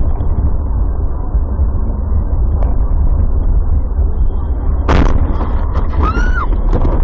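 Steady low rumble of road and engine noise inside a Mercedes-Benz car driving on a snowy road, recorded by a dash cam. About five seconds in there is one sharp loud bang, followed by a few short rising and falling high-pitched sounds.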